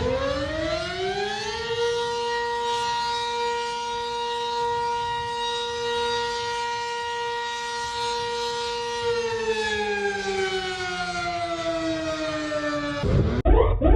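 Civil defense siren winding up, holding one steady tone for several seconds, then slowly winding down. About 13 seconds in it cuts abruptly to a different alarm, a fast warble of repeated rising sweeps, several a second.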